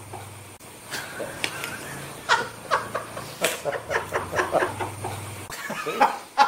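People laughing in repeated outbursts: runs of short, quick 'ha' pulses that come and go.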